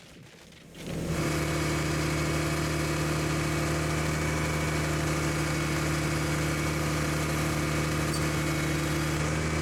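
Crane engine running at a steady speed, coming in about a second in.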